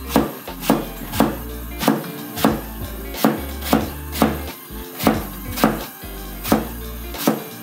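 Chef's knife slicing an eggplant into rounds, the blade knocking on the cutting board in a steady rhythm about twice a second, over background music.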